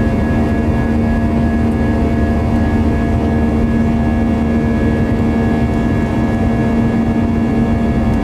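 Airbus A320's IAE V2527-A5 turbofan engines heard from inside the cabin during the climb after takeoff: a steady drone with a constant low hum and a thin high whine.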